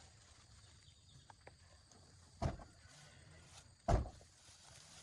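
Two heavy thumps about a second and a half apart, the second one the louder.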